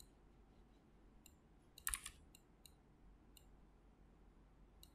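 Faint computer mouse clicks, about six scattered sharp clicks with the loudest about two seconds in, as objects are selected and moved in 3D rendering software.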